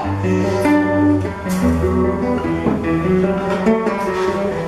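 Solo acoustic guitar playing an instrumental passage between sung verses: picked chords that change every second or so, with a few strums.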